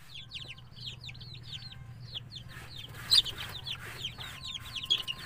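A brood of native chicken chicks peeping continuously: many short, high, falling peeps, several a second, with one louder peep about three seconds in.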